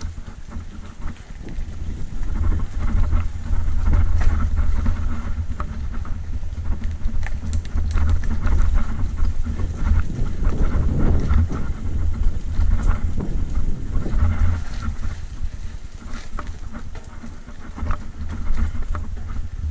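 Mountain bike descending a rough dirt trail: tyres rolling over packed dirt and loose stones, with the bike rattling and knocking over bumps, under a steady wind rumble on the microphone.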